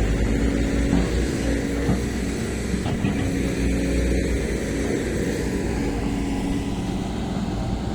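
Diesel engine of a SANY SY215C hydraulic excavator running steadily, with a few light knocks in the first few seconds.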